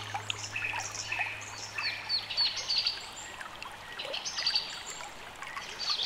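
Songbirds chirping in many short, quick calls over a steady trickle of running water.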